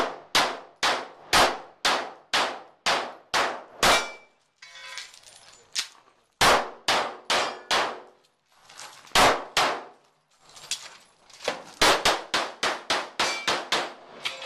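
Semi-automatic pistol fired in fast strings, each shot sharp and ringing briefly off the bay walls, about two shots a second. There is a pause of about two seconds a little after four seconds in, then further strings with shots coming closer together near the end.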